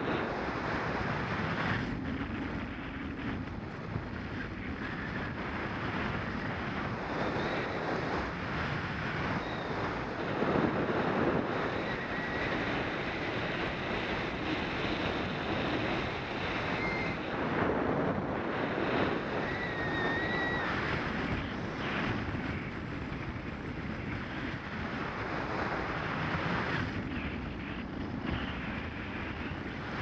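Steady airflow rushing over the microphone of a paraglider in flight, with a few faint brief high tones near the middle.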